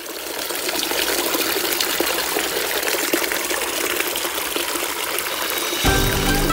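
A small stream of water running steadily down a narrow channel between rocks, fading in over the first second. Music comes in near the end.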